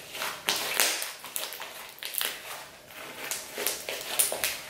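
Slime loaded with gold mica powder being kneaded and squeezed between the hands, giving irregular sticky squishing and popping noises, several a second.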